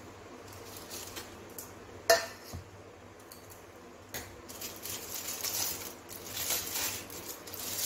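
A stainless steel plate lifted off a pot with one sharp metal clink about two seconds in, then aluminium foil crinkling as hands open the foil seal over the pot.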